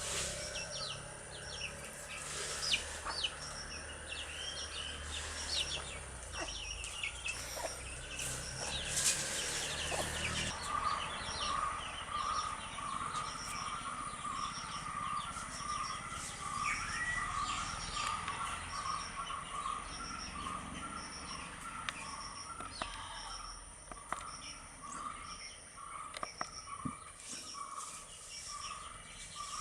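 Young chicks peeping with short high cheeps, thickest in the first ten seconds. From about a third of the way in, a steady run of short calls repeats about twice a second.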